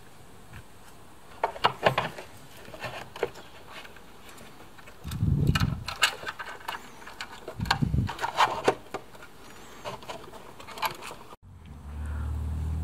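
Scattered clicks, taps and rattles of electric-scooter parts and wiring being handled and fitted back into the deck, with two dull thumps in the middle. The sound breaks off abruptly about a second before the end, giving way to a steady low hum.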